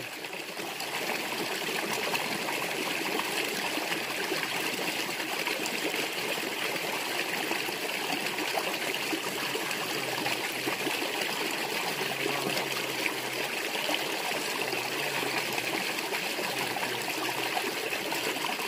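Shallow rocky stream running over stones, a steady, even rush of water.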